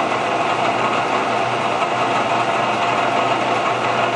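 Milling machine running at a steady speed with an edge finder turning in its spindle, locating the workpiece edge before drilling: a steady hum with a few held tones.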